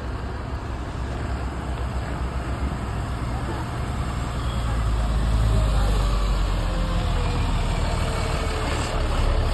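Diesel engine of a Tata 4225 heavy truck running at low speed as the truck moves slowly past close by, a deep rumble that grows louder about halfway through.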